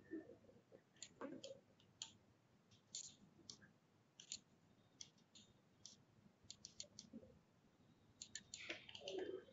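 Faint, irregular clicks of a computer mouse button.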